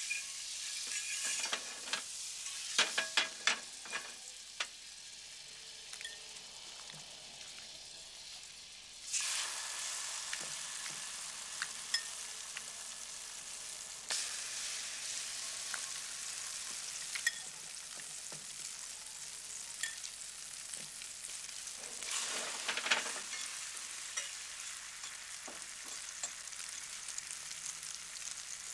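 French toast frying in a pan: a steady sizzle that jumps louder about nine seconds in and swells again near the twenty-two-second mark, with a fork clicking against the pan and dish several times early on.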